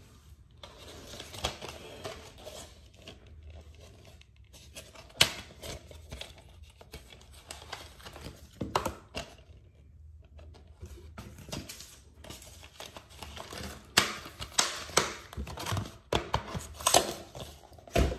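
Plastic DVD case being handled: its hinged disc trays flipped and the case opened, giving scattered sharp clicks and plastic snaps over a soft rustle, with a run of louder clicks in the last few seconds.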